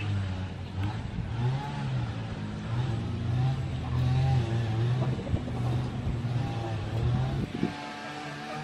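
An engine running, its pitch wavering up and down as it revs unevenly, then dropping away about seven and a half seconds in.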